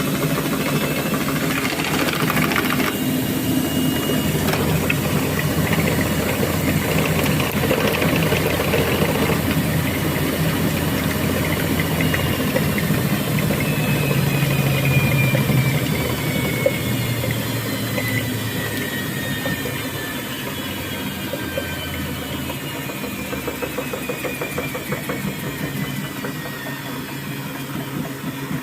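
Thomson washing machine's motor and drum running hard, then winding down: a falling whine that fades over the second half.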